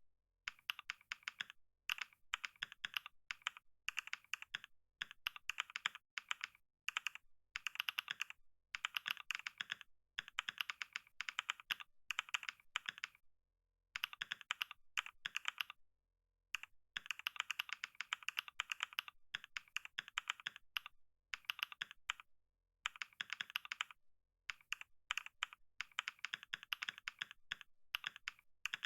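Computer keyboard being typed on: runs of rapid keystroke clicks, broken every few seconds by brief pauses of under a second.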